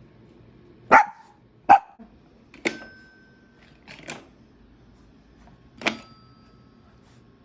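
Chihuahua barking: five short, sharp yaps at uneven intervals, the first two the loudest.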